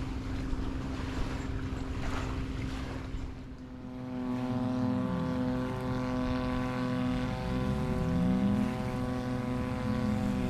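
Motorboat engine running over wind and waves, growing louder about four seconds in, its pitch dipping and rising again a few times as the throttle changes.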